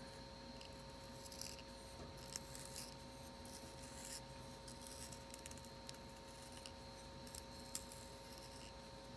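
Möbius+Ruppert brass hand sharpener shaving a Stabilo CarbOthello pastel pencil as it is turned by hand: faint, irregular scraping with small clicks.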